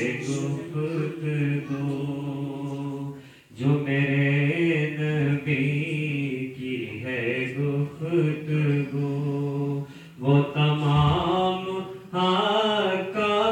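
Unaccompanied naat recitation: a man chants an Urdu devotional poem into a microphone in long melodic phrases, with short breaks about three and a half and ten seconds in.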